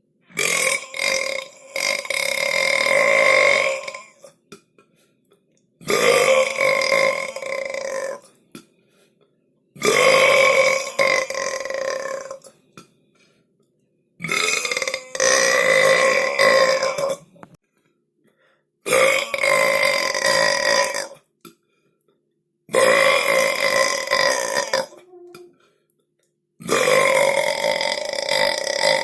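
A person belching, seven long drawn-out burps one after another, each lasting two to four seconds and holding a steady pitch, with a short silence between them.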